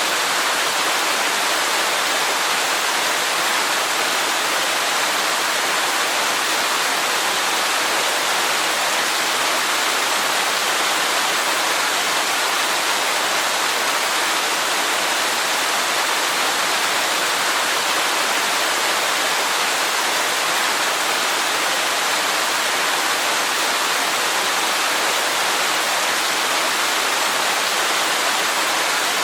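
Waterfall rushing steadily: an even, unbroken hiss of falling water, bright, with little low rumble.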